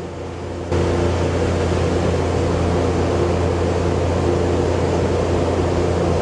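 Shop exhaust fan running: a steady hum with rushing air that gets suddenly louder under a second in. A short sharp knock comes right at the end.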